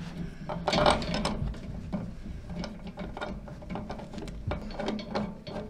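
Small metallic clicks and rattles as a yellow corrugated flexible gas connector is handled and its nut threaded by hand onto the pipe fitting, a denser cluster about a second in, over a steady low hum.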